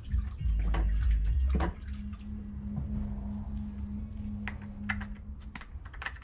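Bench work on a disassembled ATV carburetor: a low rumbling bump about half a second in, then light clicks and taps of small tools and parts, over a faint steady hum.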